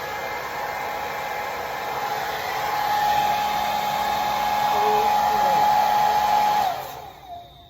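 Conair mid-size blow dryer running steadily, a rush of air with a steady hum-like tone. It is switched off about six and a half seconds in, and its pitch drops as the motor winds down.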